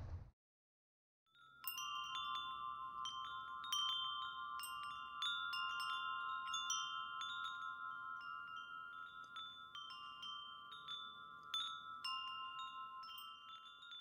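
Metal wind chimes ringing: a few tuned tubes struck at irregular moments, their tones overlapping and hanging on. They start about a second in and slowly die away towards the end.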